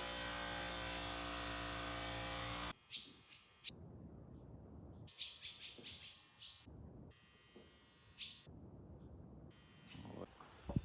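A steady electric machine hum stops abruptly a little under three seconds in. After it, faint bird chirping comes in several short spells.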